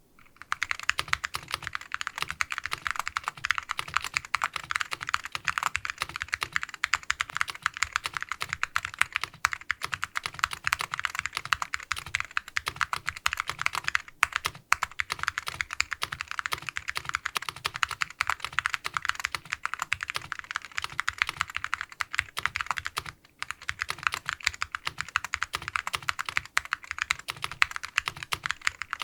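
Fast, continuous typing on a mechanical keyboard with vintage Alps SKCL Green clicky-tactile switches, a POM half plate and C.ITOH keycaps, with brief pauses about a third, half and four-fifths of the way through.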